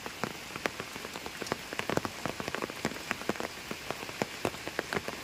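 Steady rain falling on pond water, with a dense, irregular patter of sharp drop ticks.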